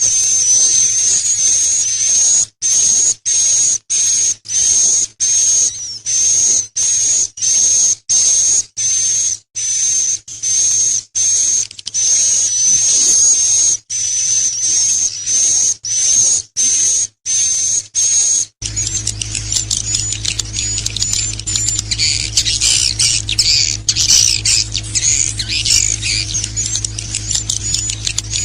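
Recorded high-pitched bird calls, repeated squeaky phrases about once a second with abrupt gaps between them. About eighteen seconds in, the recording switches to a denser run of high chirps over a steady low hum.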